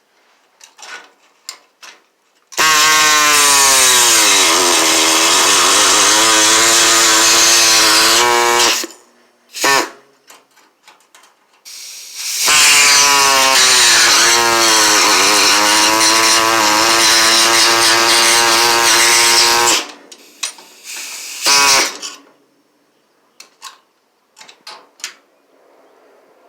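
Electric grinder running in two long bursts on sheet-metal bodywork, about six and seven seconds each. Its whine drops in pitch as the disc bears down on the metal and climbs back as it eases off, over a harsh grinding hiss. Light clicks and taps of metal fall between and around the bursts.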